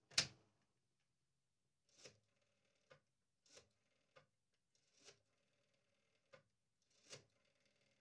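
Rotary desk phone's handset is lifted off its cradle with a sharp click at the start. Then comes a string of faint short clicks about a second apart as the rotary dial is worked to call a number.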